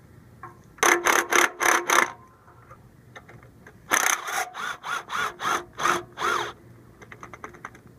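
Cordless power ratchet with a 12 mm swivel socket turning a bolt in short trigger bursts: five quick bursts, a pause, then about eight more. A few faint clicks follow near the end.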